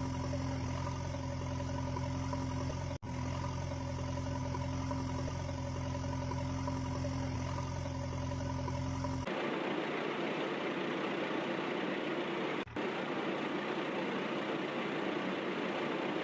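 An engine running steadily at idle with a low, even hum. About nine seconds in it switches abruptly to a thinner, hissier running sound with no low end, and there are two short dropouts along the way.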